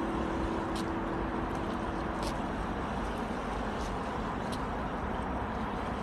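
Steady outdoor hum of distant city road traffic, with a few faint ticks; the tail of acoustic guitar music fades out in the first couple of seconds.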